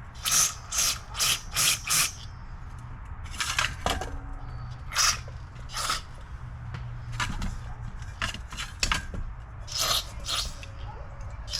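Short hissing spray bursts into a carburetor clogged with gummed-up old fuel: five in quick succession, then more spaced out.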